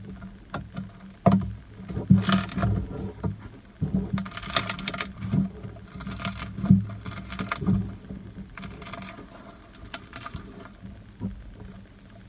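Slime being squeezed and played with by hand: irregular squishes and sticky clicks, a few each second.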